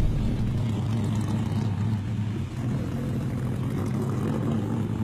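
A steady low mechanical drone, like a motor running.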